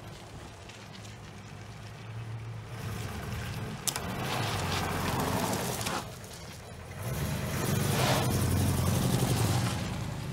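GAZ-24-24 Volga's V8 engine revving as the car drives in circles on asphalt: a low, steady engine note at first, then it swells under throttle about three seconds in, drops back briefly past halfway, and pulls hard again from about seven seconds.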